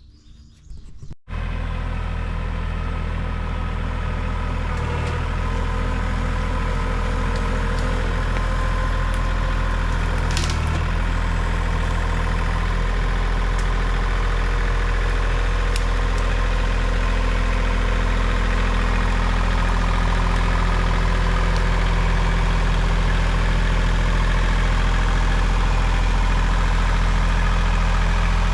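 Kubota L2502 compact tractor's three-cylinder diesel engine running steadily. It cuts in abruptly about a second in and grows slightly louder over the next several seconds.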